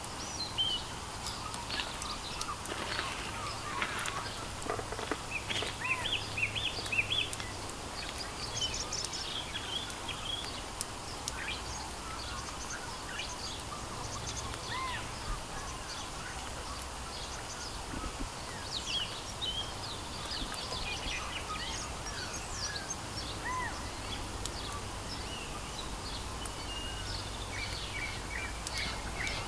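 Several forest birds calling, with many short chirps and whistles, some rising or falling, over a steady background of low outdoor noise.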